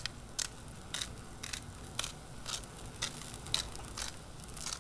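Hand pepper mill grinding black pepper in short crunching twists, about two a second, over the faint sizzle of vegetables on a hot griddle.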